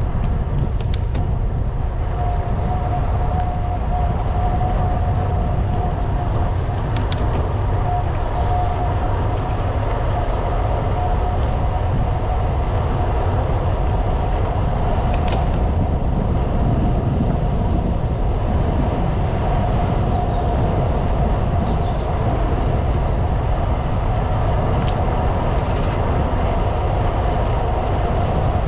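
Bicycle riding along: a steady low rumble, with a thin steady whine and a few light clicks.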